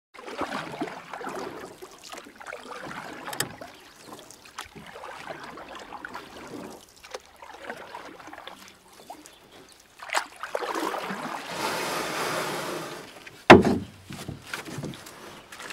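Water splashing and lapping in irregular swells, with a few sharp knocks, the loudest near the end.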